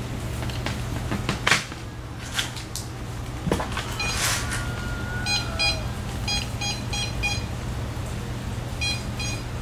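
A small electronic device beeping: short, quick high-pitched beeps in runs of two to five, starting about four seconds in. Before that there are a few sharp clicks and knocks. A steady low hum runs underneath.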